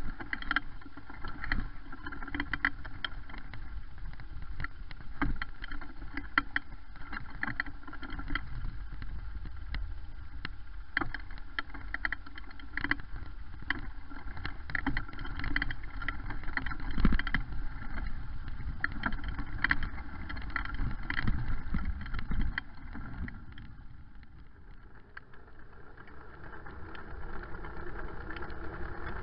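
Bicycle ridden over bumpy sand and shingle, heard from a handlebar-mounted camera: frequent rattles and knocks from the bike over a steady low wind and tyre rumble. About three-quarters of the way in the rattling stops and gives way to a smoother, steadier hum of riding on a paved path.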